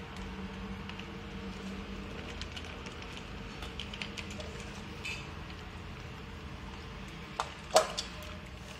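Dogs eating dry kibble from stainless steel bowls: scattered small clicks and crunches of chewing and kibble against metal. Near the end, two sharp clanks of a steel bowl, the second louder and ringing briefly, over a steady low hum.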